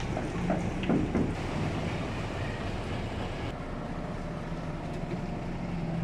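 Heavy diesel engine of a concrete transit mixer truck running steadily, a low even drone, with a brief louder noise about a second in.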